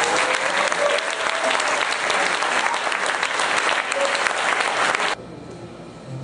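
Concert audience applauding, which cuts off suddenly about five seconds in.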